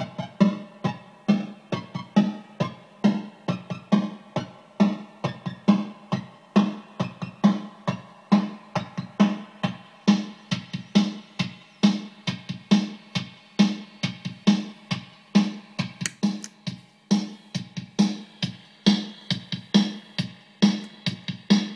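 A drum-machine beat, about two hits a second, played through a sample rate reducer pedal built from a Bugbrand schematic. As its sample-rate knob is turned, the upper tone of the hits shifts and changes.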